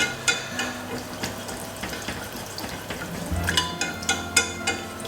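Béarnaise sauce of egg yolks and clarified butter being stirred in a pan: quick, irregular clicks and scrapes of the utensil against the pan, busier in the second half.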